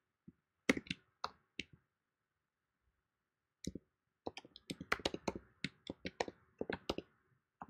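Computer keyboard keystrokes: a few separate key clicks in the first couple of seconds, a pause, then a quick run of typing for about three seconds.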